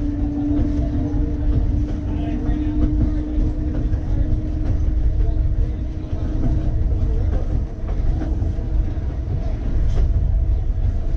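Key System 187 electric streetcar running along the track: a steady low rumble of wheels on rail, with a steady whine that fades out about nine seconds in and a few brief clicks.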